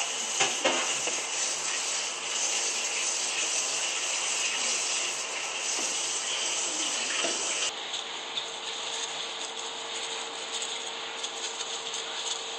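A steady background hiss, with a few light knocks and scrapes as chopped mushrooms and onion are scraped off a plastic cutting board into a slow-cooker crock. The knocks are sharpest about half a second in. A faint steady hum comes in about two-thirds of the way through.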